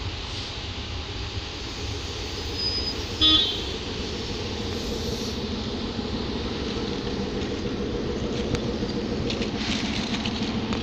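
Sri Lanka Railway M10A diesel locomotive approaching, its engine and wheels getting steadily louder as it nears. One short horn toot sounds about three seconds in.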